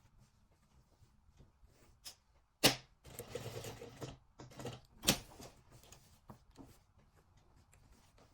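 Two sharp knocks about two and a half seconds apart, with rustling handling noise between them and a few faint ticks: objects being picked up and set down during hand sewing work.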